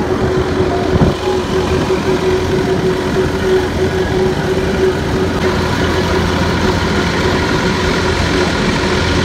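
HMT 5911 tractor's diesel engine running steadily under way, with a constant droning tone over wind and road noise.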